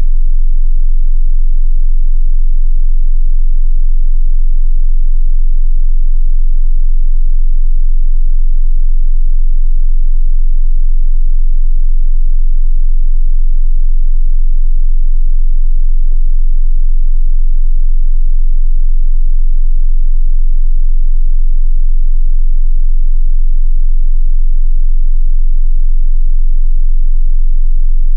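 Steady 22 Hz sine-wave bass test tone, a constant very deep hum at unchanging loudness. A faint click comes about sixteen seconds in.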